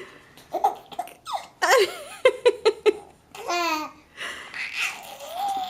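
Five-month-old baby giggling and laughing in short high-pitched bursts, with a quick run of laughs about two to three seconds in.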